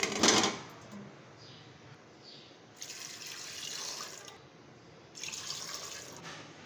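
Peeled potatoes dropping from a plate into an empty stainless-steel pot, the loudest sound, right at the start. Then a stream of tap water pouring into the pot over them, in two spells of about a second each.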